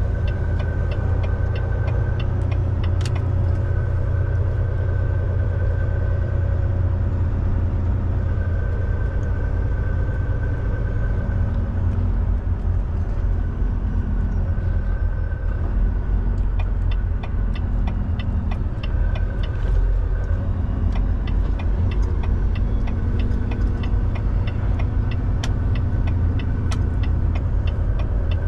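Semi-truck's diesel engine and road noise heard inside the cab, a steady low drone at highway speed. In the second half a quick run of faint ticks rides on top.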